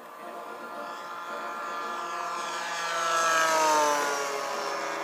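Radio-controlled scale model Spitfire's engine on a low fly-past. The buzz swells to its loudest between three and four seconds in, and its pitch drops as the plane goes by.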